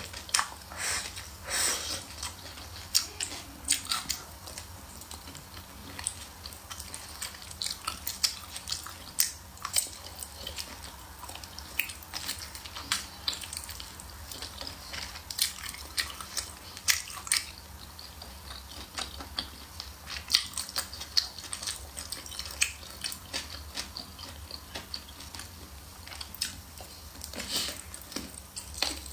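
A person eating close to the microphone: chewing with wet mouth smacks and irregular sharp clicks.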